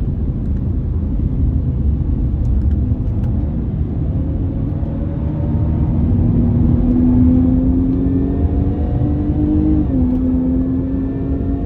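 Jaguar XE S's supercharged 3.0-litre V6 heard from inside the cabin over heavy road and tyre rumble. The engine note climbs steadily under acceleration, drops suddenly about ten seconds in at an upshift, then climbs again.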